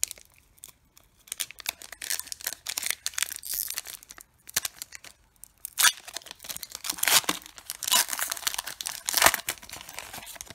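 Foil wrapper of a Panini Contenders trading-card pack being torn open and peeled back by hand, crinkling and crackling in irregular bursts that are loudest in the second half.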